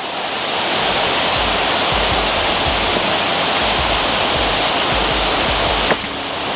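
Steady rush of water, with an irregular low rumble underneath from about a second in and a brief click near the end.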